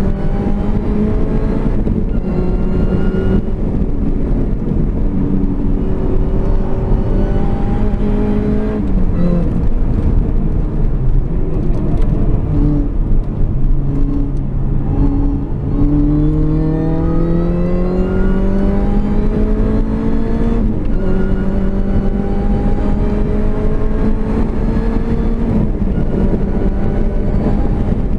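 Supercharged 1.6-litre four-cylinder engine of an R53 Mini Cooper S heard from inside the cabin under hard track driving. The revs climb and step back at gear changes, fall away about halfway through as the car slows for a corner, then climb steadily again toward the end.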